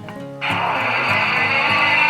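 Background guitar music; about half a second in, a loud, steady hiss-like sound starts suddenly and carries on.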